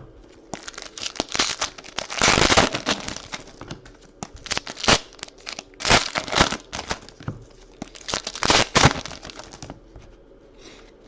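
Foil trading-card pack wrappers being torn open and crinkled in a run of sharp rips and crackles that dies down near the end.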